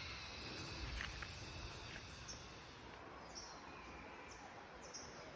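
Faint outdoor ambience: a steady hiss, with short high chirps from a small creature repeating about twice a second from a couple of seconds in.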